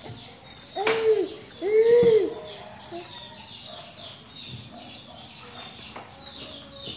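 Baby giving two short vocal sounds about a second apart, each rising then falling in pitch, over a steady background of small birds chirping.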